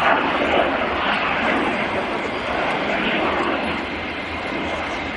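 Alpha Jet's twin turbofan engines running as the jet rolls along the runway: a steady, rushing jet noise that swells briefly about a second in.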